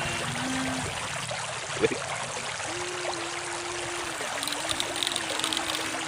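River water running steadily, with the steady hum of a toy RC excavator's electric motor that dips in pitch a few times. A single sharp knock comes about two seconds in, and small clicks near the end.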